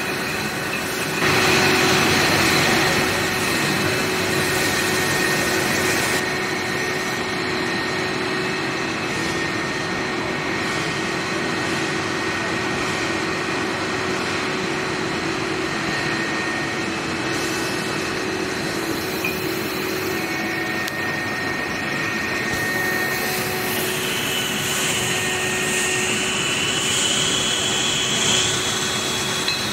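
Bottling-line machinery and tabletop chain conveyors running: a steady mechanical din with a few constant hums. It shifts abruptly several times and is loudest for a few seconds about a second in.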